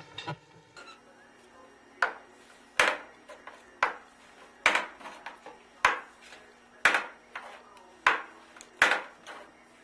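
A series of sharp knocks, about eight strong ones at an uneven pace of roughly one a second, with lighter taps between them.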